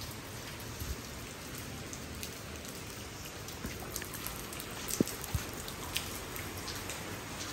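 Rain falling steadily on wet paving and tiles, a continuous hiss dotted with sharp drips and taps, the loudest tap about five seconds in.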